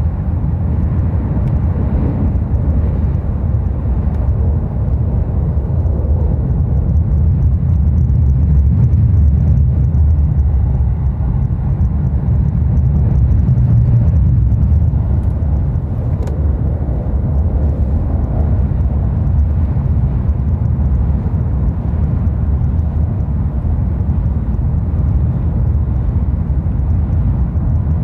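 Rapid Marine Liner electric train running over a steel truss railway bridge, heard from inside the carriage: a steady deep rumble of wheels on rail that swells slightly about a third of the way in and again near the middle.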